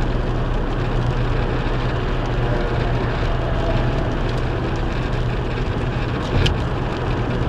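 Steady road and engine noise inside a car cruising at about 70 mph on a wet motorway, with a low hum under the tyre rush. A single brief tap about six seconds in.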